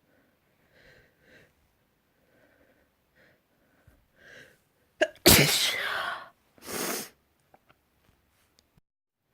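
A person's wet, spraying sneeze. A few faint catching breaths build up over about four seconds, then one loud explosive sneeze comes about five seconds in, followed by a shorter second burst.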